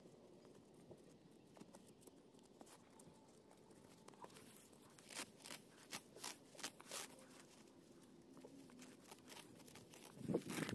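Weeds being pulled by hand from a garden bed: faint rustling, with a run of light clicks and snaps about halfway through.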